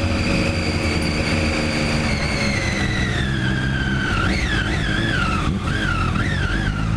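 Sport motorcycle engine heard on board while riding, with a high whine that falls steadily as the bike slows, then rises and falls several times with small throttle changes through a turn.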